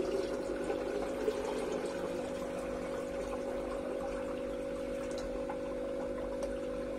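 Water pouring steadily into an upturned plastic bottle used as an artemia hatcher, over the steady hum of an aquarium air pump feeding air into it.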